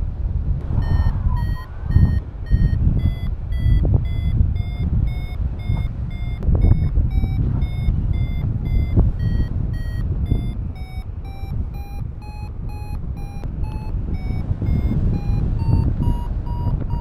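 XCtracer Mini IV variometer giving its climb tone: short beeps about two a second, rising in pitch toward the end, the sign that the paraglider is climbing in a thermal. Under the beeps, steady wind rumble on the camera microphone.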